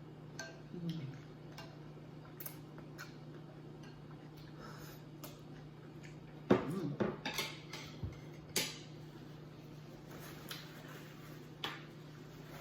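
A spoon clinking and scraping against plates while eating, in scattered short clicks, busiest about six to seven and a half seconds in, with the sharpest clink about eight and a half seconds in.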